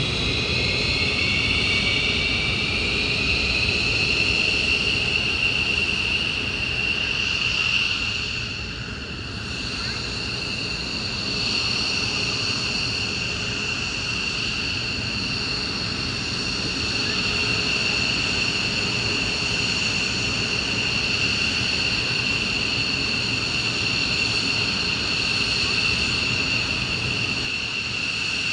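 Twin-engine F-15 Eagle jet fighters idling on the ground: a steady, loud high-pitched turbine whine with a second, higher tone above it. The whine rises slightly in pitch over the first couple of seconds, then holds steady. The sound dips briefly about eight seconds in.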